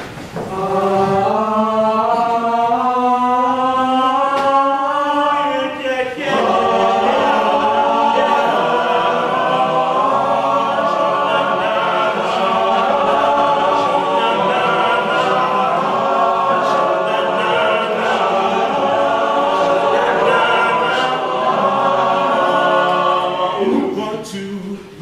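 All-male a cappella group singing without instruments: a long held chord for the first several seconds, then a fuller, busier passage that stops about a second before the end.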